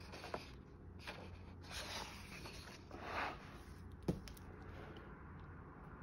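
A hardcover picture book being handled: faint swishes of pages and cover as it is closed and flipped over, then one light knock about four seconds in as the book is laid down on the table.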